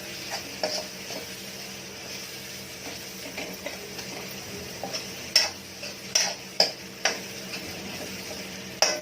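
Vegetables and spice powders sizzling on a hot tawa while a spatula stirs them, with scattered scrapes and clicks of the spatula against the pan, the sharpest ones in the second half.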